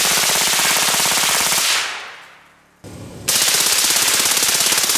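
Full-auto AR-15 rifle firing two long bursts, a fast unbroken string of shots, the second starting a little over three seconds in. Each burst trails off in echo.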